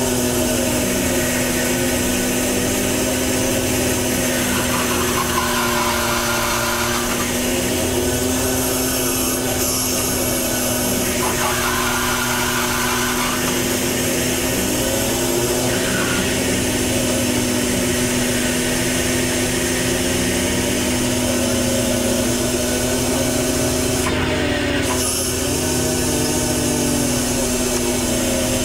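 Fishing boat's engine and hydraulic machinery running with a steady drone and a constant hum, heard from inside the wheelhouse while gear is hauled. Twice a higher-pitched whine joins for a couple of seconds, and a short hiss comes near the end.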